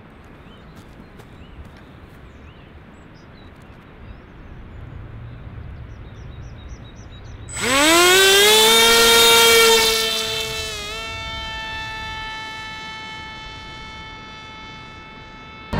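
Small brushless electric motor (Sunnysky X2216 1400KV) driving an 8x6 propeller on a flying wing, spinning up suddenly with a rising whine to full throttle for a hand launch. It holds for about two seconds, then eases back to a steady, fading buzz as the plane climbs away.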